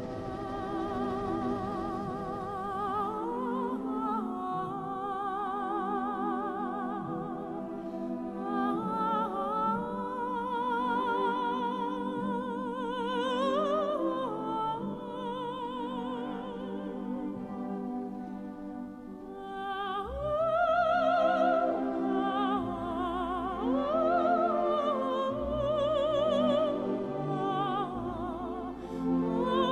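Background music: a solo singing voice in operatic style with wide vibrato over a sustained accompaniment, with deeper bass notes coming in about two-thirds of the way through.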